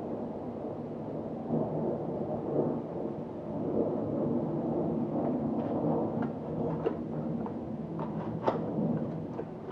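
Steady rumbling handling noise with scattered sharp clicks and knocks in the second half, as of an instrument box and its packaging being handled and opened.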